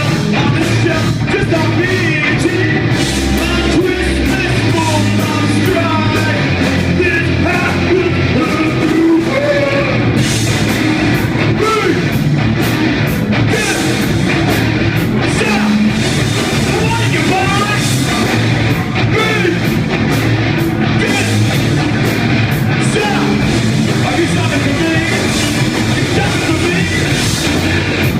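A rock band playing live at full volume, with a singer's voice over the band.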